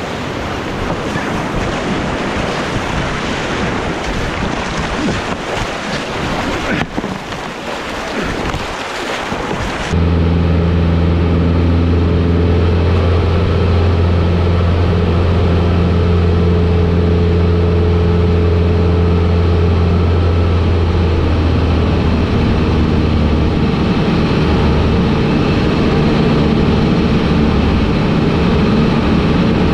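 Whitewater rapids rushing and splashing around a canoe for about ten seconds. Then an abrupt cut to the steady drone of a Cessna light aircraft's piston engine in flight, heard from inside the cabin.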